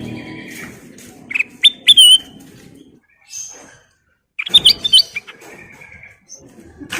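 Kutilang emas, a bulbul, singing loud, clear whistled phrases of quick rising and falling notes, twice.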